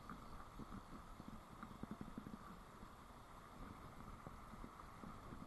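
Faint, steady rush of a fast-flowing riffle, with soft scattered ticks close by.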